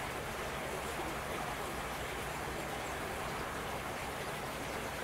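Steady low rumble and hiss of distant road traffic, with a truck passing.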